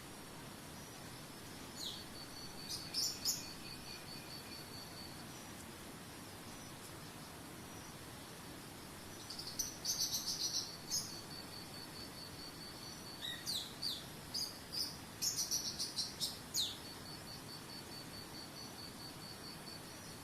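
Small birds calling in three bouts of sharp, high downward-sweeping chirps, each bout followed by a rapid, even, high-pitched pulsed trill lasting a few seconds. Underneath, a steady soft hiss of running water.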